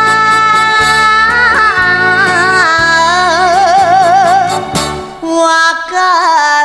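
Music: a 1960s Japanese popular song in which a woman's voice holds one long note with wide vibrato over a steady rhythmic band accompaniment. The accompaniment drops out briefly about five seconds in.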